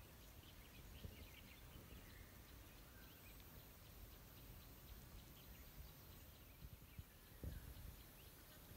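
Faint outdoor nature ambience: a steady low rumble with scattered faint, short high chirps, and a soft thump about seven and a half seconds in.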